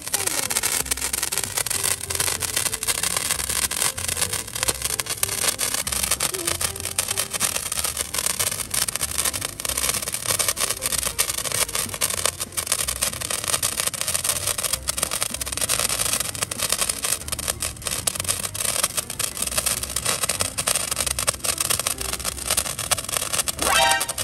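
A handheld sparkler burning with a dense, continuous crackling fizz. A short bit of voice comes in near the end.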